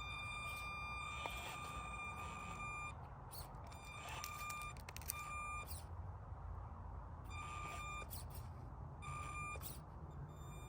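High-pitched electric whine of the Axial SCX24 Deadbolt mini RC crawler's motor under throttle. It comes in stretches: a long one of about three seconds at the start, then several short, irregular bursts as the throttle is blipped on the climb.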